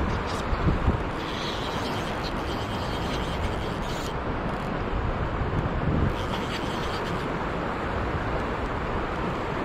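Steady rushing of a river's current, an even roar of moving water.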